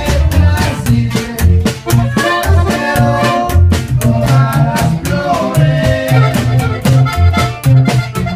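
Live norteño-style band music led by a button accordion playing the melody, over a walking upright bass line and a steady beat.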